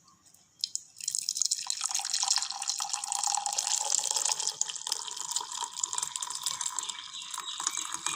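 Boiled herbal decoction (kashayam) being poured from the pan through a strainer into a glass: a couple of light knocks, then a steady stream of liquid from about a second in.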